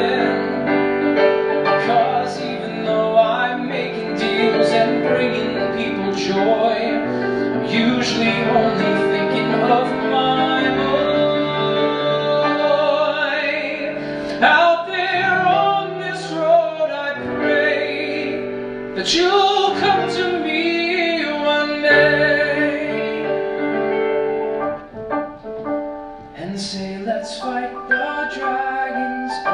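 A man's voice sings a musical-theatre song into a handheld microphone, with piano accompaniment.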